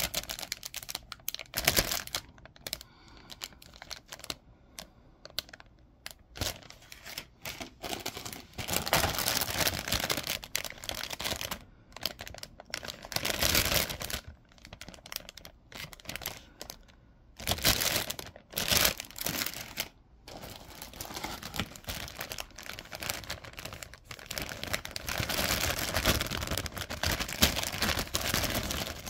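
Clear plastic bags holding a model kit's plastic runners crinkling as they are handled, in irregular bursts with several louder stretches and quieter pauses between.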